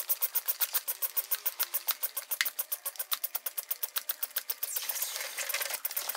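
Holt Industries manual fluid extractor sucking water out of a jug through its hose under pumped vacuum: a rapid, even ticking, several ticks a second, that gives way to a steady hiss about four and a half seconds in as the built-up vacuum keeps drawing.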